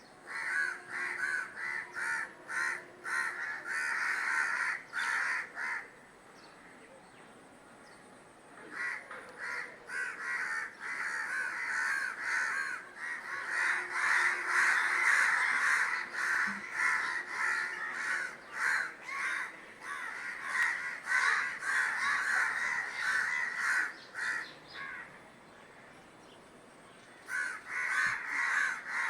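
Crows cawing in long runs of quick, repeated calls, broken by two lulls of a few seconds, one about six seconds in and one near the end.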